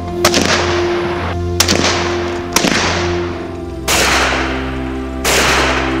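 Five rifle shots, spaced about a second to a second and a half apart, each sharp crack followed by an echoing tail, the last two with the longest tails; background music plays under them.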